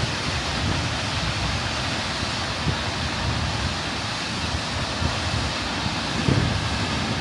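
Steady rushing of a waterfall, with wind rumbling on the microphone.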